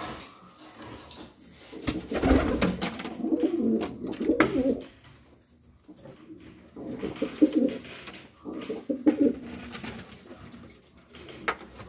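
Domestic pigeons cooing in a small enclosed brick loft, in two spells of low cooing a few seconds each, with a few light clicks in between.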